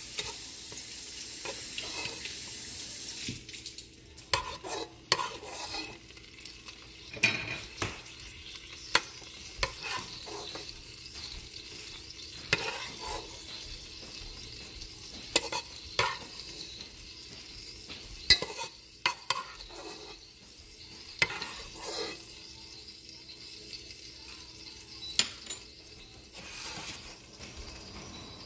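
Metal spoon scraping and clinking against a pot and a ceramic plate as cooked fish stew is spooned out, a string of scattered sharp knocks. A steady hiss runs at the start and stops about three seconds in.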